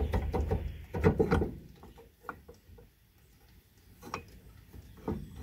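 Brake caliper being worked loose by hand from a front disc brake rotor: two bursts of metal clunks and rattles in the first second and a half, then a few lighter clicks.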